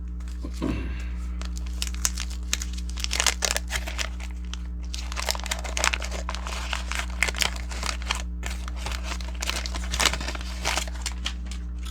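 Wax paper wrapper of a 1989 Fleer baseball card pack crinkling and tearing as it is opened by hand: a long run of irregular crackles, over a steady low hum.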